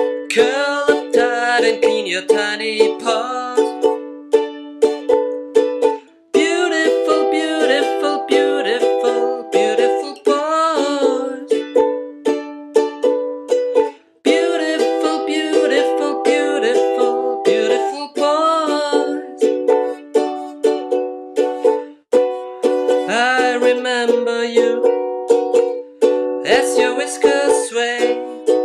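Background music: a plucked-string song with a melody line over it, its chords changing about every four seconds.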